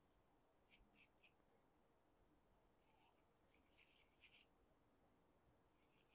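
A small brush scrubbing the carburetor by hand, faint: three short strokes about a second in, then two longer spells of quick scrubbing. It is working off an orange ring of residue, which he calls a rust ring, that carb cleaner did not remove.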